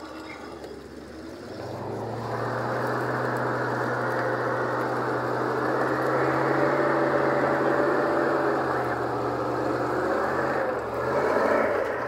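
GAZ-66 truck's V8 petrol engine revving up and running hard under load as the truck climbs out of a ditch, its revs holding high and steady and swelling once more near the end.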